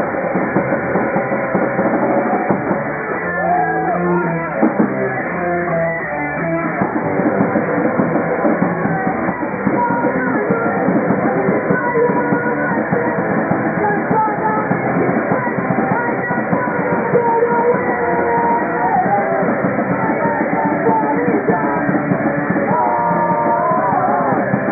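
Live rock band playing: electric guitar and drum kit, with a singer's voice into the microphone.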